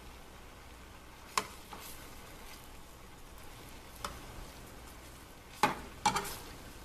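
Chicken pieces sizzling faintly in a frying pan as a metal slotted spatula stirs and turns them. The spatula clacks and scrapes sharply against the pan four times, the loudest two near the end.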